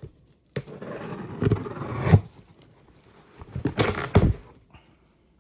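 Cardboard shipping box being opened by hand: two bouts of scraping and tearing as the packing tape and flaps are pulled open, the first lasting about a second and a half, the second shorter, about three seconds in.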